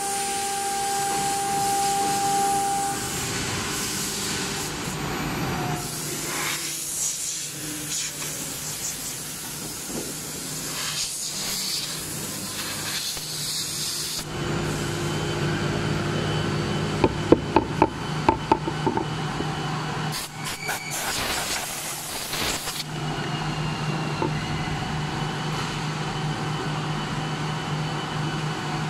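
1325 CNC router's spindle cutting lettering into a wood board: a steady hiss of cutting with a spindle whine. A quick run of sharp clicks comes a little past the middle.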